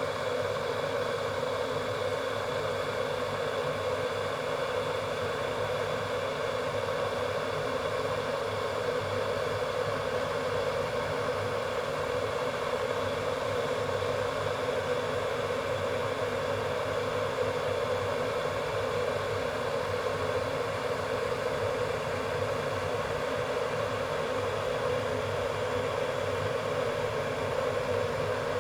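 Electric ceramic kettle boiling water: a steady rushing noise that holds level without change.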